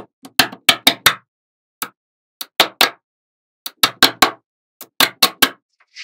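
Small magnetic balls clicking and snapping together as rows of them are pressed onto a panel of balls: sharp clicks in quick clusters of three to five, with short pauses between.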